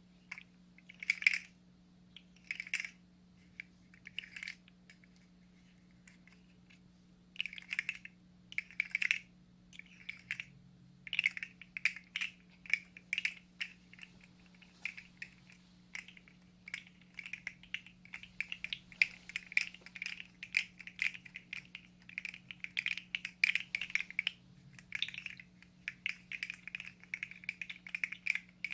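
3D-printed articulated fidget slug being wiggled in the hands, its plastic segments clicking and rattling in quick clusters. There is a short lull a few seconds in, and the rattling grows denser later. A faint steady hum runs underneath.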